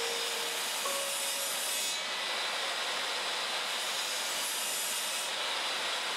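Sliding compound miter saw's spinning blade cutting through a hardwood board, a steady rasping saw noise.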